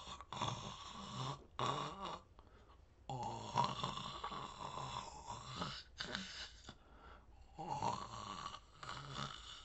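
A man imitating snoring with his voice: a few long snores with short pauses between them.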